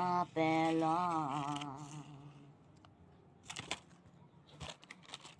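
A man sings the word "Wafello", holding the last note with a wavering vibrato. After a quieter stretch come a few short crisp crunches as he bites into a coconut creme wafer.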